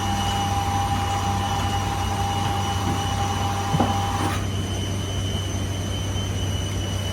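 Steady mechanical hum with whining tones while a Boeing 747's nose cargo door operates. A higher whine cuts off suddenly about four seconds in, leaving the low hum running.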